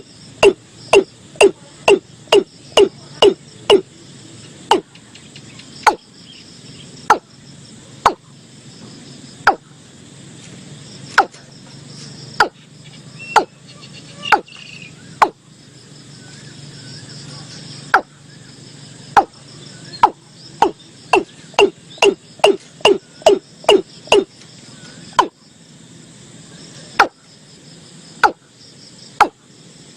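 Watercock calling: a series of short, hollow knocking notes, at first about three a second, then slowing to one every second or so, speeding up again past the middle and slowing once more. Crickets or other insects chirr steadily underneath.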